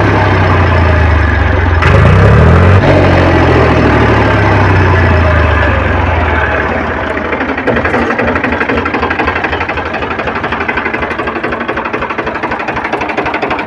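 Powertrac 439 DS tractor's three-cylinder diesel engine running without load, freshly overhauled with new rings, pistons, liners and bearings and being run in. It revs up briefly about two seconds in, then runs quieter with a rapid diesel clatter from about seven seconds in.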